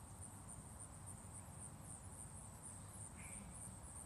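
Faint insects trilling: a steady, high, finely pulsing buzz, with a low rumble underneath and one short chirp about three seconds in.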